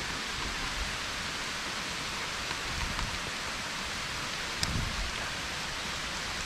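Heavy rain pouring down through the trees, a steady hiss, with a few drops ticking close by and a dull bump a little past four and a half seconds in.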